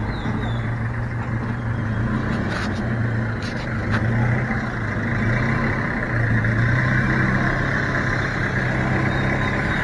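Toyota van's engine running at low revs as the van manoeuvres slowly, a steady hum that swells and dips slightly.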